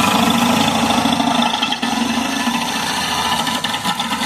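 Stump grinder's engine running steadily as it grinds tree roots, with a dense grinding noise over the engine note.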